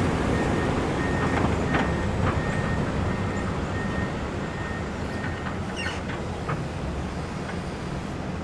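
Komatsu excavator's diesel engine running with a low rumble while its travel alarm beeps repeatedly, the beeping stopping about halfway through. A few sharp metallic clanks sound near the end.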